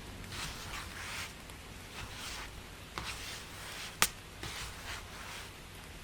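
Soft, repeated swishing and rustling, with a few sharp clicks; the loudest click comes about four seconds in.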